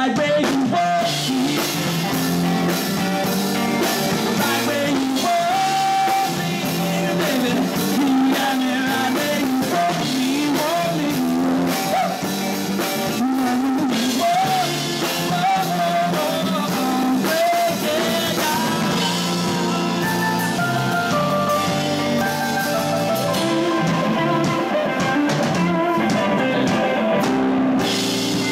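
Live rock band playing a song through amplifiers: electric guitars, keyboard and drum kit, with a wavering melody line carried over the band through the middle.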